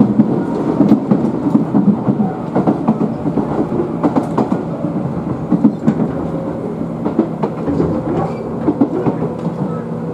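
Tobu 20000 series commuter train running, heard inside the passenger car: a steady rumble with irregular clatter and knocks of the wheels over rail joints.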